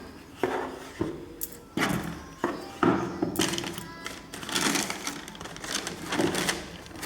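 Cardboard shoebox and its packing being handled: rustling and several light knocks as the box is opened to show the inside.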